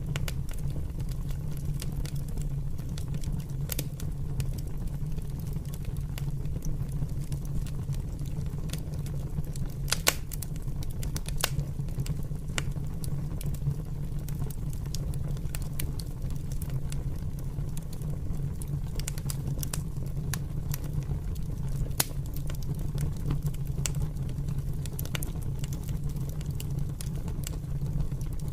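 Fire burning: a steady low rumble of flames with irregular sharp crackles and pops scattered throughout, a few of them louder.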